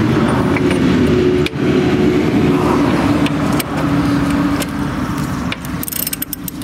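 A motor vehicle's engine running steadily close by, easing a little near the end, with a few sharp metal clinks of a socket being fitted onto the rear hub's spindle nut.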